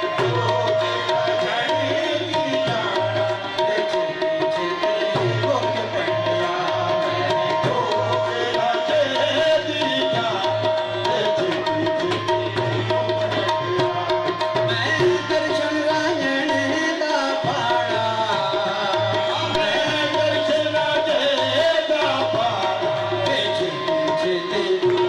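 Instrumental intro music: a steady hand-drum rhythm under long held melody notes.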